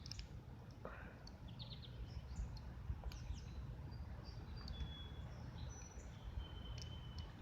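Quiet outdoor ambience: a steady low rumble with scattered bird chirps and short high whistles throughout.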